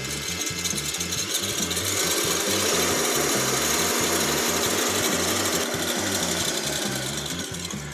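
Kenwood stand mixer running at high speed, whisking egg whites in its steel bowl as sugar is added: a steady mechanical whir. It grows louder about two seconds in and eases off near the end.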